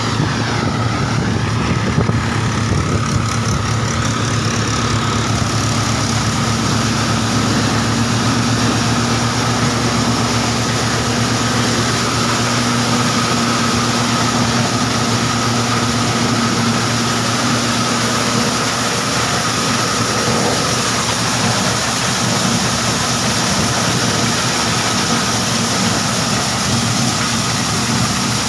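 Mahindra 415 DI tractor's diesel engine running steadily under load while it drives a maize thresher, with the thresher's drum and blower working. The sound is a low steady engine drone with a constant high whine over it and a rushing noise.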